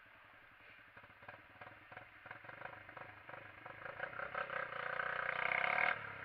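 SYM XS125-K motorcycle's engine pulling under throttle out of a roundabout, growing steadily louder over several seconds, then falling away sharply near the end as the throttle is closed.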